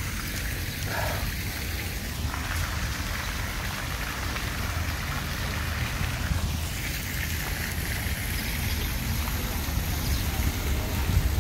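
Steady outdoor background noise: an even hiss over a low, fluctuating rumble of wind on the microphone.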